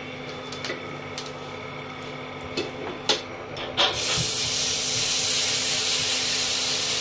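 Rice-and-semolina pancake batter sizzling on a hot, oil-greased nonstick pan. The loud, steady hiss starts suddenly about four seconds in as the batter goes onto the pan, after a few light clicks.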